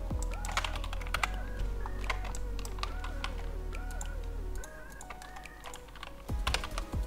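Computer keyboard and mouse clicking in scattered bunches over soft background music. The music's low bass stops about two-thirds of the way through.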